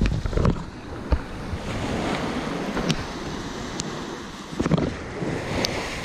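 Steady wash of small waves at the shoreline with wind on the microphone, broken by a few sharp knocks and clicks scattered through.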